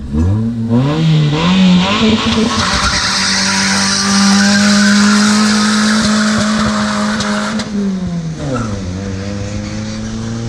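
Small import car with a loudened, modified exhaust accelerating hard: the engine note climbs in quick steps as it shifts up, holds at high revs for several seconds with a raspy hiss over it, then drops as the driver comes off the throttle. It is obnoxious, like a lawnmower losing its blade.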